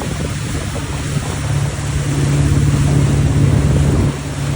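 Speedboat engine running with a steady low hum over wind and water noise; the hum grows louder about a second and a half in, then drops away suddenly near the end.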